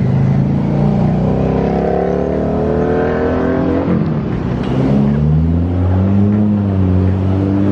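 Car engine accelerating: the pitch climbs, drops about four seconds in as it shifts gear, then climbs again.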